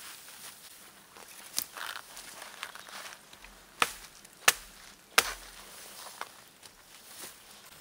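Hatchet chopping branches off a spruce pole: sharp strikes, the three loudest in quick succession around the middle and lighter ones before and after, with the swish and rustle of needled spruce branches between them.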